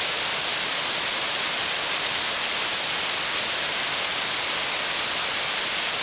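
Rain-swollen mountain creek rushing down a rocky cascade: a steady, unbroken wash of white-water noise, loud enough to drown out talk.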